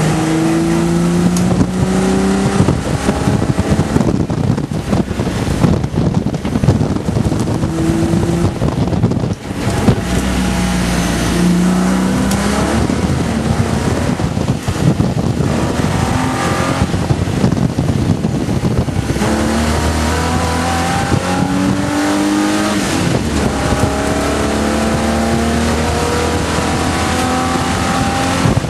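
Holden VP Commodore's V6 engine heard from inside the cabin at race pace, climbing in pitch under acceleration again and again and dropping back between pulls, over steady wind and tyre noise.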